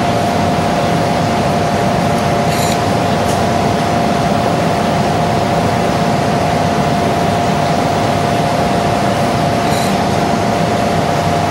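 Steady loud hiss with a constant hum-like tone, over which a few faint clicks of a knife on a wooden cutting board are heard as black trumpet mushrooms are sliced.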